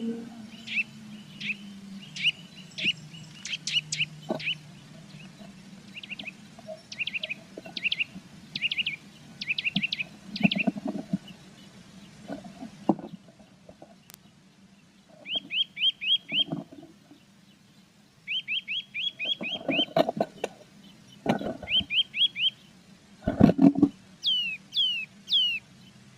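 Blue tits chirping at a nest box in quick runs of short, sharp notes, with a few rustles and knocks of the bird shifting in the nest material. Near the end come a handful of falling whistled calls. The footage is sped up 1.3×, which raises the pitch.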